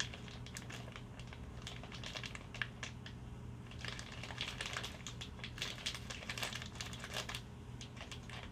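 Packaging crinkling and rustling, with many scattered small clicks and taps, as hands rummage through a box of car parts. The crackling is busiest in the middle of the stretch.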